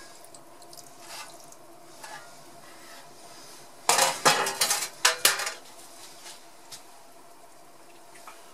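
Stainless steel tray and metal tongs clattering as they are set down: a quick run of sharp metallic clinks and scrapes about four seconds in, lasting over a second, after a few faint clicks.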